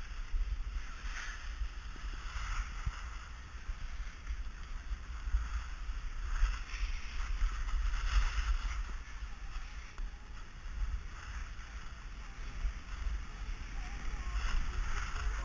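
Wind buffeting a GoPro Hero 2's microphone during a run downhill, a steady low rumble. Over it, the hiss of edges scraping across packed snow swells and fades several times as the rider turns.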